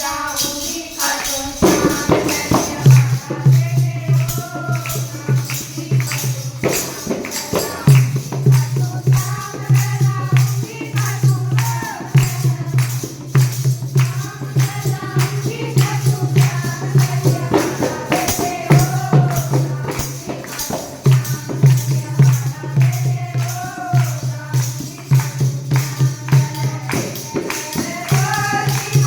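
Haryanvi Shyam bhajan: a voice singing over rhythmic percussion and a steady low drone that comes in about three seconds in.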